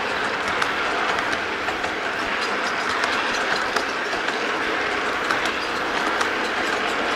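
O gauge three-rail model freight train's boxcars rolling past close by: a steady rumble of metal wheels on the track with frequent irregular clicks.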